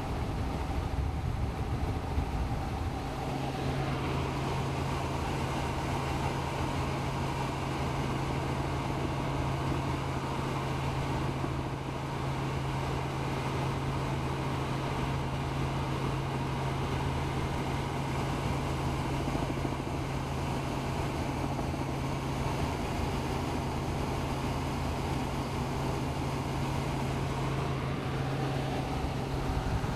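Helicopter in flight heard from inside the cabin: steady engine and rotor noise, with a steady low hum that comes in about three seconds in and drops out near the end.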